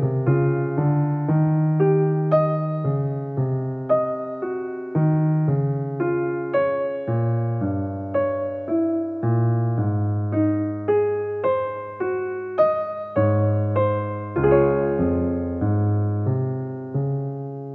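Solo piano music: a slow melody with chords, notes struck about twice a second, ending on a chord left ringing.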